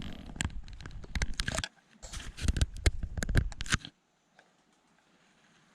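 Close handling noise: a quick run of crackling, rustling clicks that stops abruptly about four seconds in.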